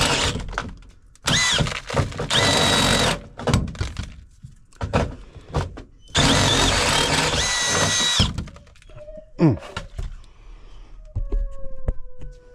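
Power drill with a step bit (unibit) cutting through sheet metal, run in three bursts with a steady high whine, the last stopping about eight seconds in. Knocks and clicks fall between the bursts.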